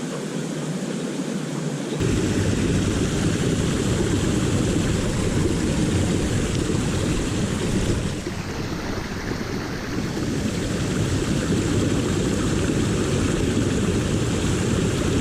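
Wind buffeting the microphone over the rush of river water: a steady, low rumbling noise that grows fuller about two seconds in and dips briefly about eight seconds in.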